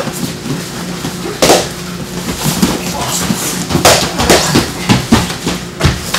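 Live baton sparring on gym mats: a string of sharp thuds and smacks as a foam training baton strikes padded attackers and bodies hit the mat, with voices.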